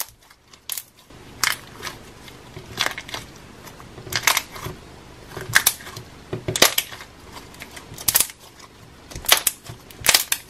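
Small ball of homemade borax slime squeezed and stretched by hand, letting out repeated sharp pops and clicks of trapped air, about one a second and sometimes two close together.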